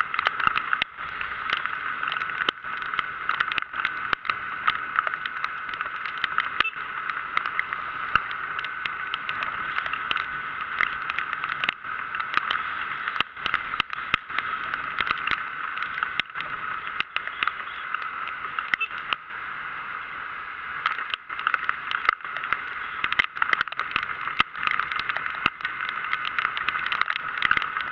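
Rain and riding wind on the microphone: a steady rushing hiss with dense, irregular crackling clicks of raindrops striking it.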